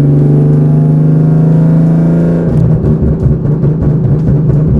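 2011 Ford Mustang's 3.7-litre V6 running steadily under load. About two and a half seconds in, the throttle closes and the exhaust breaks into irregular crackling and popping on deceleration. The pops come from a tune that disables deceleration fuel cutoff and alters the ignition maps on decel.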